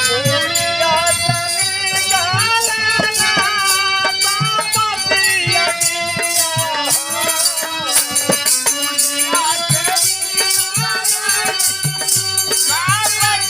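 Live Bhojpuri birha folk music accompaniment: a gliding melodic line over regular drum strokes and a high, jingling rattle-like percussion keeping the beat.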